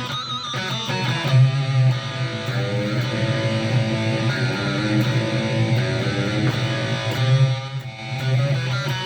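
Electric guitar played through a Donner Arena 2000 multi-effects processor on a boosted lead patch. It plays a run of sustained, driven notes, and some of them waver in pitch just after the start, as with a bend or vibrato.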